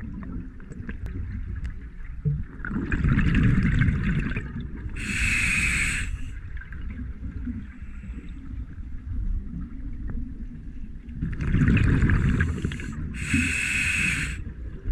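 Scuba diver breathing through a regulator underwater, twice over: a rumbling burst of exhaled bubbles, then a shorter, sharper hiss as the regulator delivers air on the inhale.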